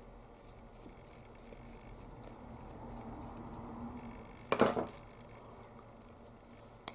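A small screwdriver faintly turning a tiny screw out of a plastic key fob case. About four and a half seconds in comes a brief metallic clatter on the wooden tabletop, the loudest sound. A single sharp click follows near the end.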